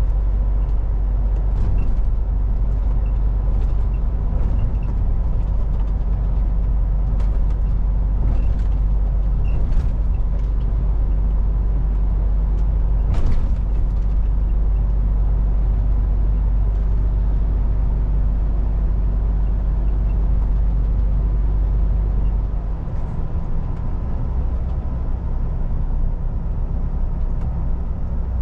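Diesel engine and road noise of a MAN TGX semi truck under way, heard from the driver's cab: a steady low drone that eases a little about 22 seconds in.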